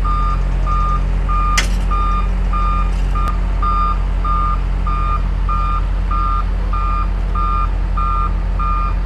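Wheel loader's backup alarm beeping steadily, about one and a half beeps a second, over its engine running steadily as it backs up, dragging a tipped tractor out of a ditch by chains hooked to the bucket. One sharp click about a second and a half in.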